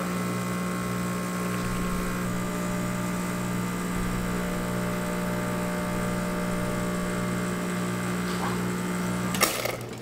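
Isomac espresso machine's pump running with a steady hum while pulling a shot of espresso, then cutting off near the end with a sharp knock as the brew is stopped.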